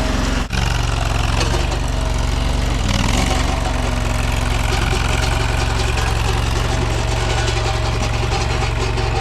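Small gas engine of a mini skid steer running steadily, with a brief break about half a second in.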